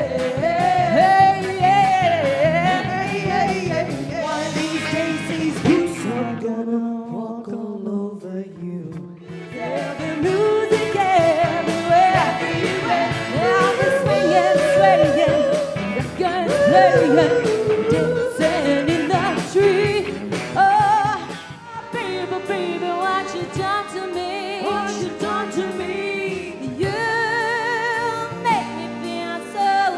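Motown-style pop songs sung with band backing. The sound thins for a few seconds about a quarter of the way in, and the music shifts about two-thirds through.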